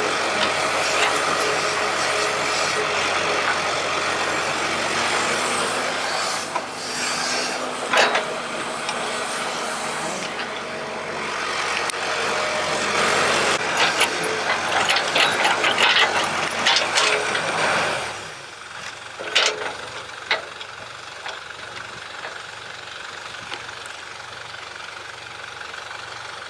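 Excavator engine running hard, with clanks and rattles of metal on metal. About two-thirds of the way through it drops to a quieter steady run, with a couple more clanks.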